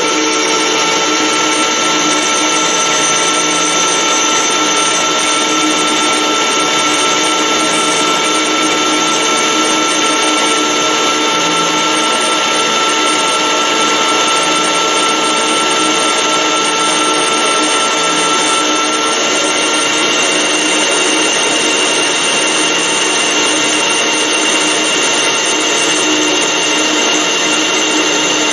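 Metal lathe running steadily under power feed, the cutting tool taking a continuous turning cut along the workpiece as the copy attachment guides it, with a steady gear-and-motor whine. About two-thirds of the way through the whine shifts: two middle tones fade and a higher one comes in.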